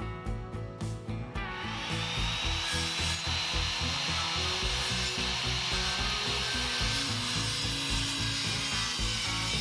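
Power saw cutting plywood sheathing, starting about a second and a half in and running steadily with a high blade whine, over background guitar music.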